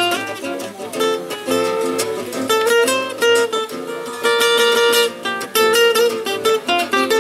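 Two acoustic guitars playing together. One is a Selmer-Maccaferri-style oval-soundhole guitar. Quick runs of picked notes mix with strummed chords, without a break.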